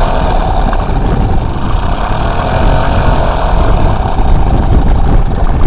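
1976 Evinrude Mate 2 hp two-stroke outboard motor running steadily at low, near-idle throttle.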